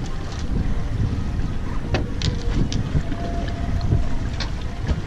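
Wind buffeting the microphone aboard a boat on open water, a steady low rumble, with a few short sharp clicks about two seconds in and again near the end.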